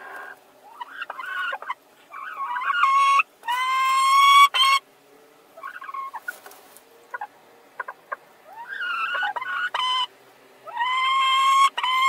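Laying hens squabbling over one nest box: a run of rising squawks and two long, drawn-out complaining calls, one about four seconds in and one near the end, with a few short clicks in between.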